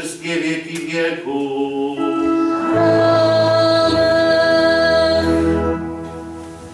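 Church liturgical singing: a chanted line moves from note to note, then settles into a long held chord with voices and organ. The chord swells as low bass notes come in about three and four seconds in, then fades out toward the end.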